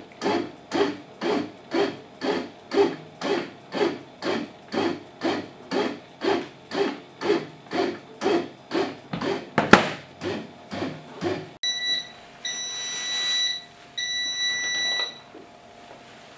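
Star Light bread maker kneading dough: the paddle and motor make a pulsing rhythm a little over twice a second, with one sharp knock near the end of the kneading. Then the machine gives three high electronic beeps, a short one followed by two long ones.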